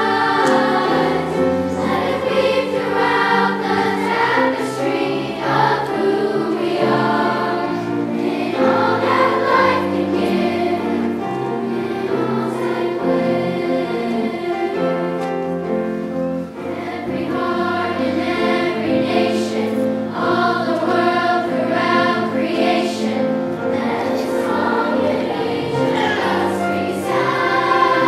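A large choir of elementary-school children singing sustained notes, with a short break between phrases a little past halfway.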